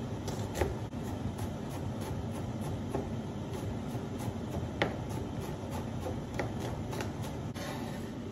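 Chef's knife chopping a red onion on a cutting board: scattered knocks of the blade against the board, the loudest just before five seconds in, over a steady rushing background noise.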